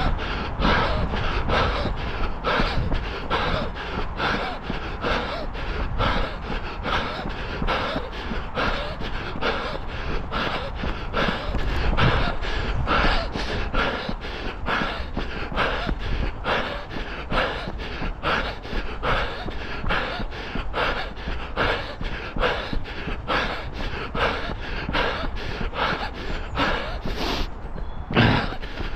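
A runner's breathing at race effort, quick and rhythmic at about three breaths every two seconds, close to the microphone, over a steady low rumble. Near the end the rhythm breaks briefly, then a louder breath follows.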